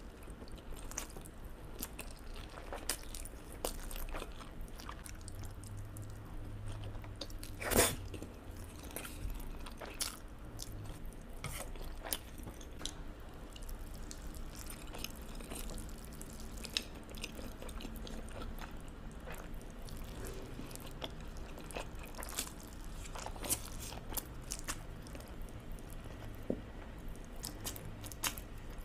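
A person eating carbonara noodles with chopsticks: chewing and biting mouth sounds with many short clicks scattered throughout, and one louder click about eight seconds in.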